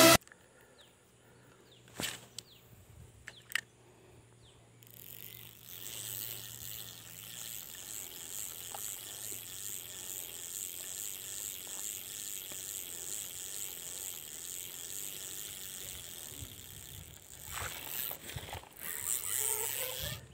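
Steady high-pitched insect chorus that starts about five seconds in, after a near-quiet opening with a few sharp clicks. Louder rustling and handling noise comes near the end.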